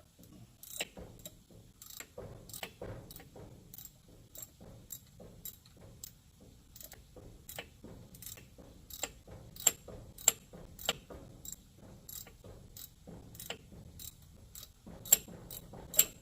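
Hand ratchet wrench clicking as it is swung back and forth to tighten a fitting, about two clicks a second, with a few louder clicks near the middle and just before the end. The ratchet is dry enough that its owner says it needs oiling.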